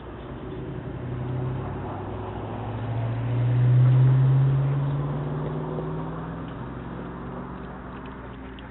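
A motor vehicle's engine hum that swells to its loudest about four seconds in, rising a little in pitch, then fades again.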